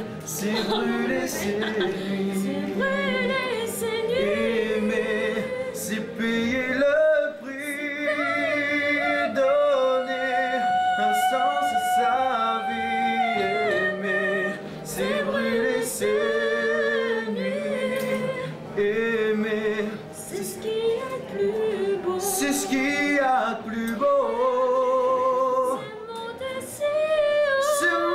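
A voice singing a slow melody, with wide vibrato on long held notes.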